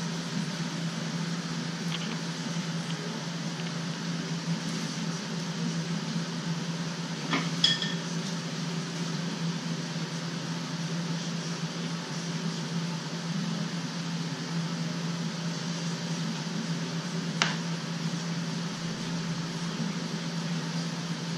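Steady low mechanical hum in a workshop, with a light clink about seven seconds in and a fainter click near the end.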